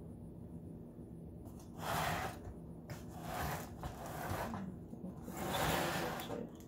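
Disposable aluminium foil roasting pan crinkling as a raw turkey is shifted and turned in it by hand, in three bursts of rustling.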